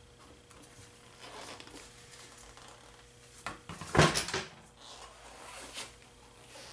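Handling noises from a small motorcycle's rear wheel and drum-brake panel being pulled apart: soft rubs and knocks, with a loud clatter of metal knocks about four seconds in and a couple of fainter clicks near the end.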